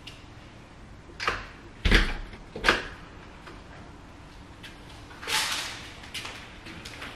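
Knocks and thumps of shopping bags being put down and the front door being handled, three in quick succession with the loudest, heaviest thud about two seconds in, followed a few seconds later by a brief rustle and a few light clicks.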